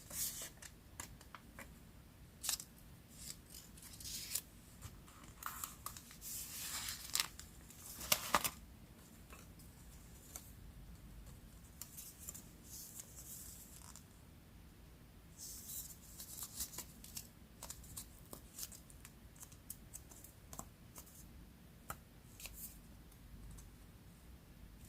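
Scissors cutting paper in short, irregular runs of crisp snips, with light paper rustling. The snipping is busiest in the first eight seconds and again around fifteen seconds in.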